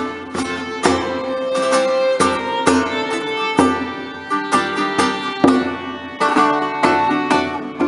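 Early-music ensemble playing an instrumental piece live: quick plucked string notes with sharp attacks, over held sustained tones.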